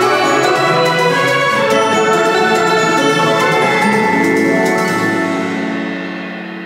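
Closing theme music: a dense passage of many held notes that begins to fade about five seconds in, leaving a low chord ringing.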